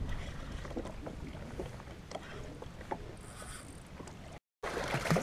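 Wind on the microphone and water lapping against a drifting jet ski's hull, with a few faint clicks and knocks. The sound cuts out completely for a moment near the end.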